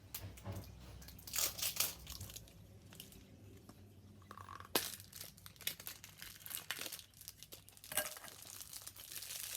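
Toy packaging being crinkled and torn open by hand, in irregular bursts of crackling with a couple of sharp clicks.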